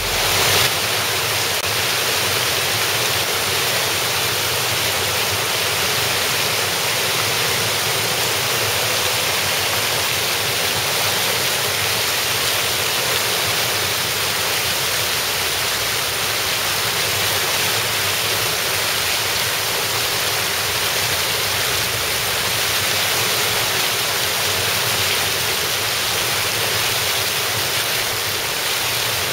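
Steady, even rush of water pouring over a small step waterfall into a stream pool.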